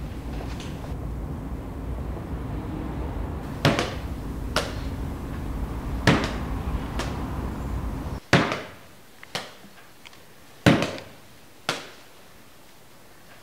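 A series of sharp knocks and clunks, about eight in all and spaced a second or so apart, over a low, steady rumble that cuts off suddenly about eight seconds in. The loudest knocks come after the rumble stops.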